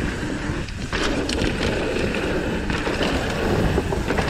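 Mountain bike rolling fast down a rocky dirt trail: a steady rush of tyre noise over dirt and stones, with scattered clicks and knocks from the bike rattling over the rough ground.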